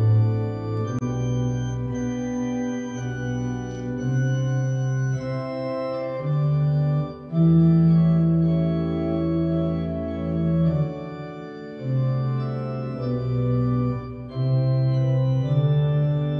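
Church organ played on a three-manual console: held chords over a sustained bass, changing every second or two, with brief lifts between phrases.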